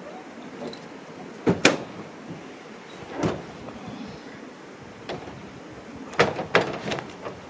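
Ford F-150 pickup's tailgate and camper-shell rear hatch being opened from inside the bed: sharp metal clunks and knocks, the loudest pair about a second and a half in. Near the end comes a cluster of three or four knocks and thuds as someone climbs out onto the lowered tailgate.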